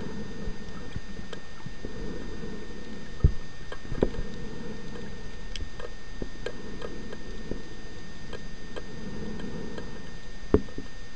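Underwater ambience on a coral reef recorded through a camera housing: a steady low rush with scattered sharp clicks, three of them louder, about 3, 4 and 10.5 seconds in.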